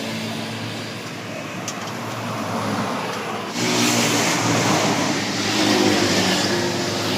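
A car driving: steady engine and road noise, stepping up louder about three and a half seconds in.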